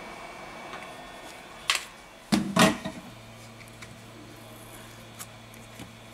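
Small hand tools and a plastic phone midframe being handled on a rubber repair mat. There is a sharp click, then two louder knocks half a second apart, a few faint ticks later, and a low steady hum that starts about three seconds in.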